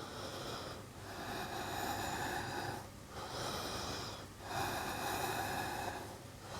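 A woman breathing audibly and slowly, long noisy in-and-out breaths with short pauses between them, about four in all. She is recovering her breath after a hard core exercise.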